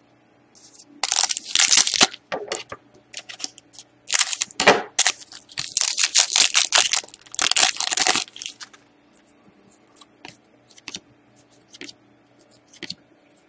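Shiny silver trading-card pack wrapper being torn open and crinkled by hand, in loud crackly bursts about a second in and again from about four to eight seconds in. Soft clicks of cards being handled follow.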